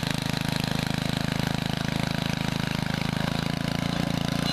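Single-cylinder Tecumseh vertical-shaft engine on a rear-tine rototiller, running steadily with a rapid, even firing pulse while the tines churn into grassy soil.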